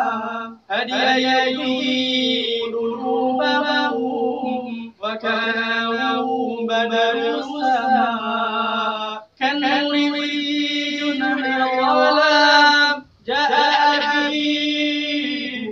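A man chanting solo and unaccompanied in an Islamic vocal style, drawing out long, ornamented notes in phrases of about four seconds, with quick breaths about one, five, nine and thirteen seconds in.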